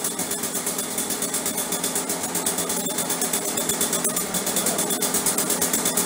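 Echo PB500T backpack blower's two-stroke engine running steadily after a no-start repair, now on a replacement Hipa carburetor.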